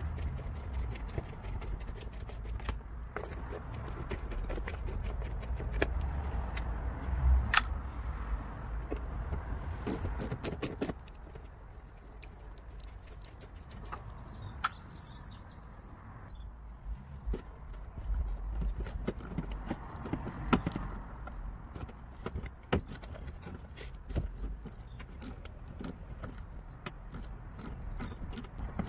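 Scattered clicks and scrapes of a small socket ratchet and metal tools working the screws and plastic clips of a car's wheel-arch liner, over a low rumble that eases off about a third of the way in.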